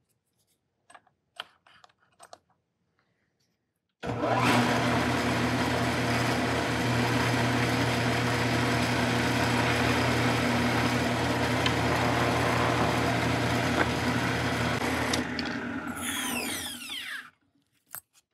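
Power drill running at a steady speed for about eleven seconds, drilling holes in a steel square nut, then switched off and spinning down with a falling whine. A few light clicks come before it starts.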